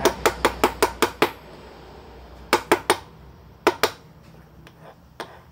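A stainless steel coffee filter basket filled with ground coffee being tapped and handled: a quick run of about seven sharp metallic taps, then a few more in twos and threes.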